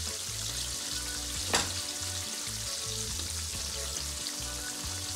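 Coated hake fillets shallow-frying in hot oil in a pan, a steady sizzle and crackle. One sharp click about a second and a half in.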